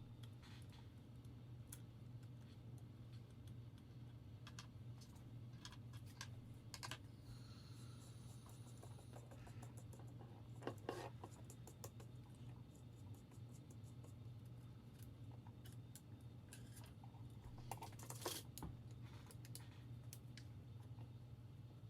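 Faint, scattered light clicks and taps of tools and small metal parts being handled during a telescope mount teardown, over a low steady hum. A few louder clusters of clicks come about a third and half way through and again near the end.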